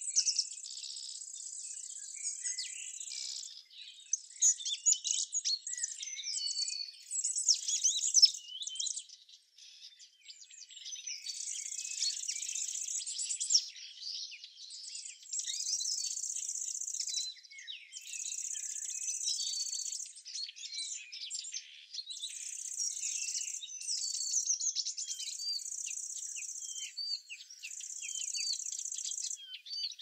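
Small songbirds chirping and singing in quick, varied high notes, over an insect's steady high buzz that comes in bouts of about two seconds with short pauses between them.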